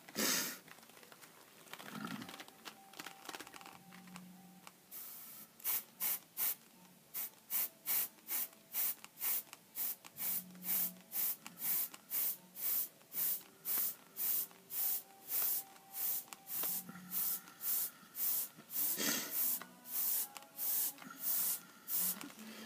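Airbrush spraying paint onto a helmet over a paper stencil, in short hissing bursts nearly two a second, after one longer spray about five seconds in.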